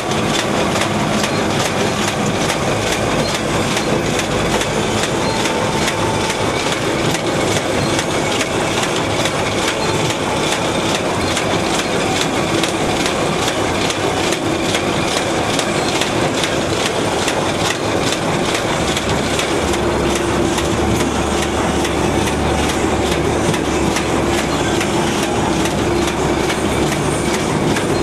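Double-track soap wrapping machine running, its feed and wrapping mechanism giving a steady, rapid mechanical clatter.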